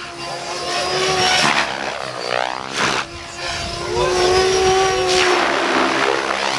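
Mikado Logo 700 electric RC helicopter flying 3D aerobatics. The motor and rotor whine sweeps up and down in pitch through the manoeuvres, with repeated surges of rotor-blade noise.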